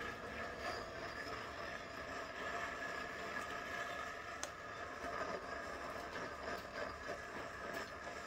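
Torch flame burning steadily on a Stihl TS350 Super muffler pipe, heating it to cook out the carbon that has plugged it: a steady hiss with faint held tones.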